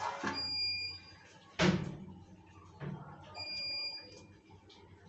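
A sharp metallic clang about one and a half seconds in, as of a steel utensil knocked on the stone counter, with a softer knock a little later. Twice, about three seconds apart, a high electronic beep sounds for under a second.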